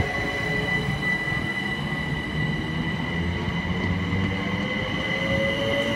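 GWR Class 387 electric multiple unit running past on the rails, with a steady high whine over the wheel noise and a lower motor whine rising in pitch near the end.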